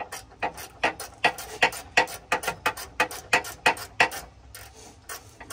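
Hand ratchet clicking in regular strokes, about three a second, as a transmission bell housing bolt is backed out. The clicking stops about four seconds in.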